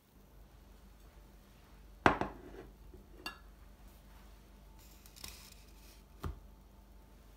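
Glass tableware set down on a hard tabletop. A sharp knock with a short ring comes about two seconds in, a glassy clink follows a second later, then a brief rustle and another knock near the end.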